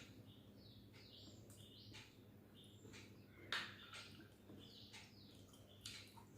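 Near silence, with birds chirping faintly in the background. A soft click comes about three and a half seconds in and another near the end.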